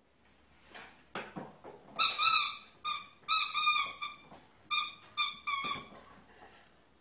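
French Bulldog puppy whining: a run of about nine short, high-pitched whimpers between about two and six seconds in, after a couple of soft scuffs.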